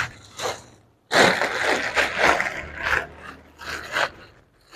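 A fabric handbag being handled and put down on a desk: dense rustling and scraping of cloth and plastic starting about a second in and lasting about three seconds, with a short knock near the end.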